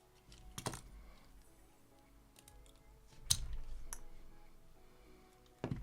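Sharp clicks and scraping of a small hand tool working at the plastic relays on a body control module's circuit board, with three louder snaps: about a second in, around three seconds, and near the end. Faint background music underneath.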